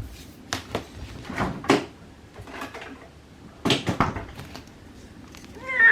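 Scattered short knocks and clatters like a cupboard door being handled, the loudest about 1.7 s and 3.7 s in. Near the end an elderly Persian cat starts to meow.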